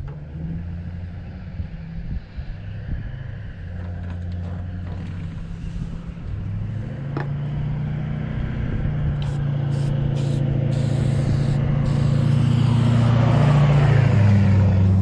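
A motor vehicle's engine running and growing steadily louder as it approaches, its pitch stepping a few times, with tyre and engine noise peaking near the end as it passes.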